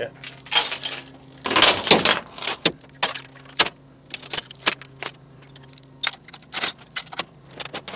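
Irregular metallic jangling and clicking, like keys or loose metal rattling, over the steady low hum of a running truck engine. Two louder rattling bursts come about half a second and a second and a half in.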